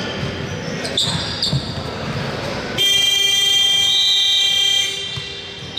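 Gym shot-clock buzzer sounding one steady, loud blast of about two seconds as the shot clock runs out.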